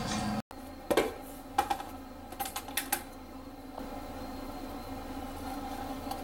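A plastic sheet-face-mask dispenser box being handled and its flip-top lid opened. There are a few sharp clicks and taps over the first three seconds, the loudest about a second in, then a steady low hum while a sheet mask is drawn out.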